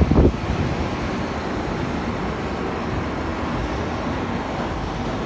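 Steady drone of running heavy machinery, with a brief louder low rumble right at the start.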